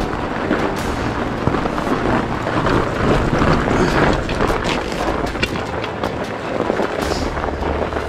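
Fat bike riding along a snowy forest trail: a dense, rough rumble of the fat tyres over snow with frequent small knocks from the bike, and wind buffeting the microphone.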